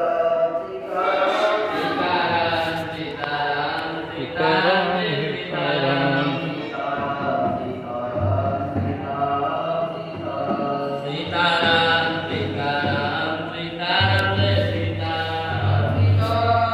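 Hindu devotional chant sung by men's voices, accompanied by a dholak drum.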